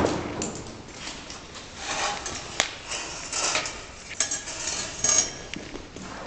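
Irregular crunching and scraping with clinks and knocks, and a sharp knock about two and a half seconds in: footsteps and shuffling on a gritty, debris-strewn floor.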